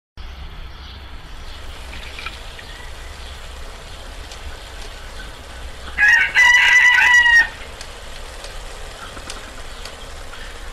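A rooster crows once about six seconds in: a short first note, then a long drawn-out one. A steady low rumble of outdoor background runs underneath.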